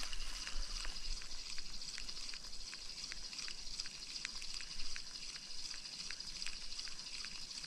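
Spinning reel being cranked on a lure retrieve, its handle and gears giving a light tick about three times a second over a faint steady hiss.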